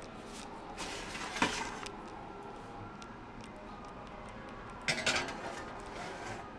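Metal baking sheet and oven rack clanking as the tray is slid into an oven: a sharp clunk a little over a second in, then scraping and rattling around five seconds in.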